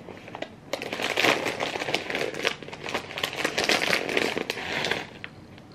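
Snack packaging being handled, crinkling and rustling in dense crackles that start about a second in and die down near the end.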